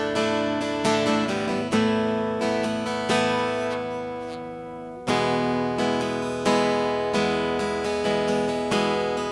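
Tagima California acoustic guitar played through its built-in pickup into a mixing desk, with chords strummed about every 0.7 s. Midway one chord is left ringing and fading for about two seconds before the strumming resumes.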